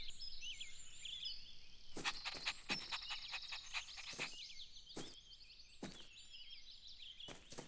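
Faint outdoor ambience of small birds chirping, quick high chirps repeated throughout, with about ten short soft taps scattered through it.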